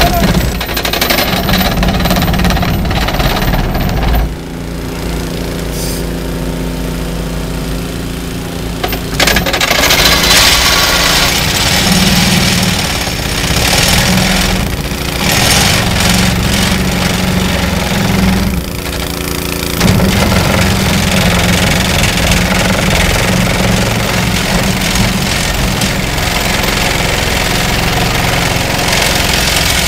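Vibratory plate compactor mounted on a mini excavator's arm, driving a vinyl sheet pile into the ground, over the excavator's engine running. The noise is loud and steady, with a quieter stretch in the first several seconds and brief lulls about 4 and 19 seconds in.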